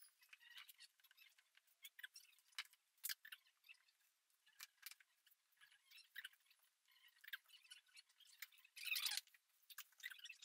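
Faint, scattered taps, clicks and rustles of books and small objects being handled and set down on wall shelves, with a longer rustle or scrape about nine seconds in.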